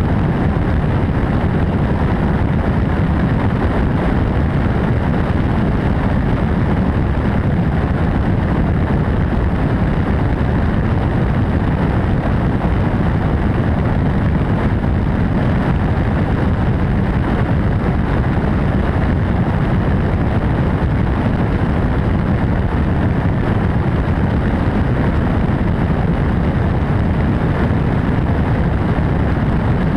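MD600N helicopter in flight: a steady turbine and rotor noise, heard with wind on the microphone.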